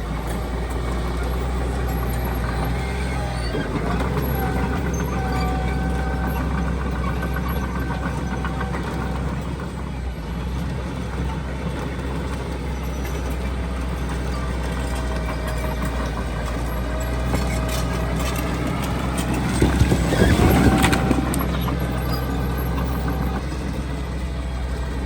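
Heavy construction machinery diesel engines running steadily with a low drone. About twenty seconds in, a louder rush of noise rises and dies away over a couple of seconds.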